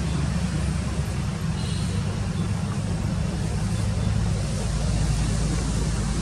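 Steady low rumble with a hiss over it: outdoor background noise.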